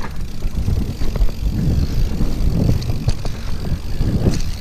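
Mountain bike rolling down a dirt singletrack: wind rumbling on the microphone over the tyre noise, with scattered clicks and rattles from the bike.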